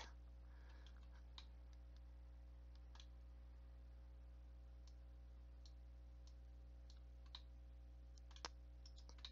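Near silence with faint, scattered computer mouse and keyboard clicks, about a dozen, over a steady low electrical hum.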